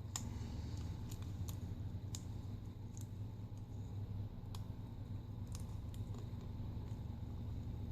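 Scattered small, sharp clicks and taps, about ten at irregular intervals, as the flex-cable connectors of a replacement screen are pressed into their sockets on a phone's board and handled with small tools, over a steady low hum.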